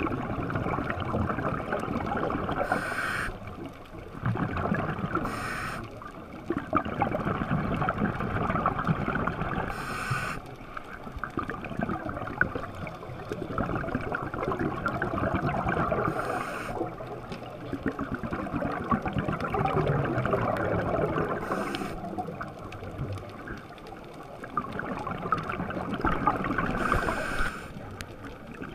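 Underwater sound of a scuba diver breathing through a regulator: continuous bubbling and gurgling, with a short hiss about every five seconds, heard through an underwater camera housing.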